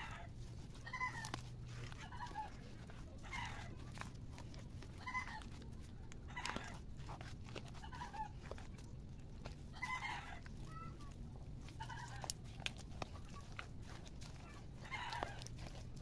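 A chicken clucking faintly in short calls every second or two, with a few sharp clicks between them.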